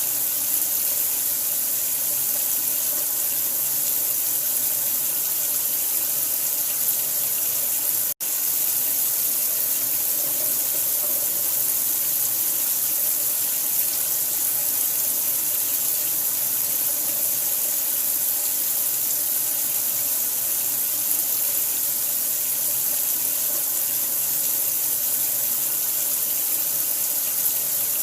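Steady, hissy rush of running water played as a sleep sound for a newborn, unbroken except for a split-second gap about eight seconds in.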